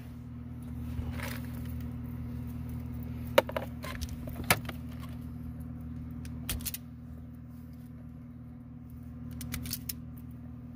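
Hand crimping tool clicking and clacking as a butt connector is crimped onto speaker wire, a few sharp clicks about three and four seconds in, a double clack past six seconds and a small cluster near the end, over a steady low hum.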